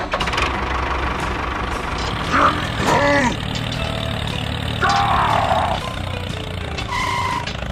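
Tractor diesel engine idling steadily, with a few short pitched cries over it.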